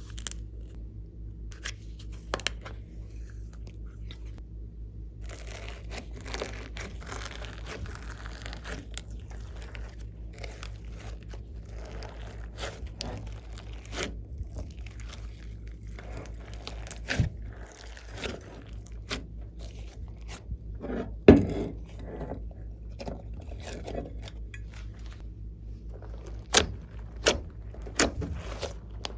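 Glossy slime being worked by hand, giving off many sticky clicks and crackling pops, with one sharper pop about two-thirds of the way through. A steady low hum runs underneath.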